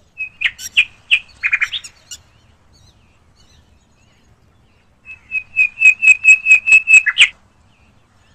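A small bird chirping: a scatter of sharp, high chirps in the first two seconds, then after a pause a quick, even run of about nine same-pitched chirps ending just past seven seconds.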